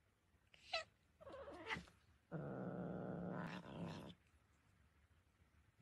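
Cat vocalizing: two short calls with gliding pitch, then one long, steady, low call lasting nearly two seconds.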